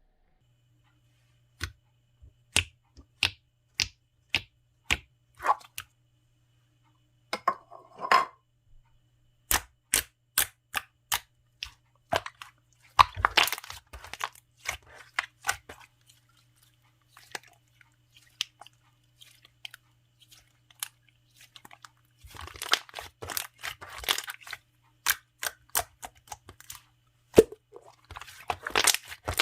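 Hands playing with a chocolate jiggly slime, making sharp clicking pops as it is pressed and pulled. The pops come singly, about one a second at first, then in quicker crackling runs later on.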